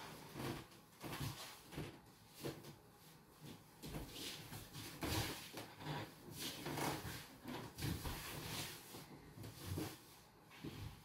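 Bare feet thudding, stepping and scuffing irregularly on a hardwood floor as a dancer moves, with room echo.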